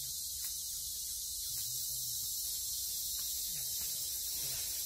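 Steady, high-pitched drone of forest insects, unbroken throughout.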